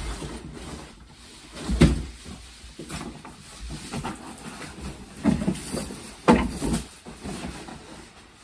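Clothes and belongings being rummaged through by hand: rustling and shuffling, with sharp knocks about two, five and six seconds in.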